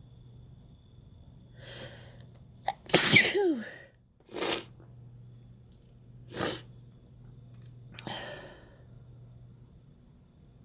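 A person sneezes once, loudly, about three seconds in: an audible in-breath, then a sharp burst with a voiced cry that falls in pitch. Three shorter breathy sounds follow over the next few seconds.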